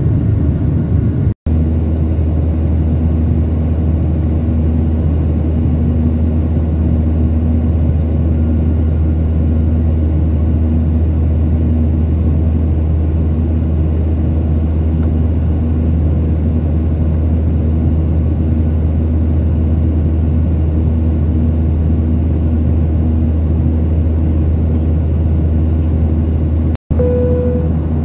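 Steady low drone of jet engines and airflow inside a jet airliner's cabin at a seat over the wing. It cuts out for an instant twice, and a short single tone sounds near the end.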